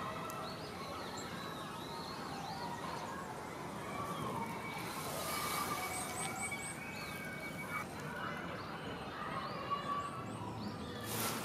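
Outdoor ambience with small birds chirping and twittering on and off in the trees. A faint steady high tone holds for about three seconds in the middle, and a short rush of noise comes right at the end.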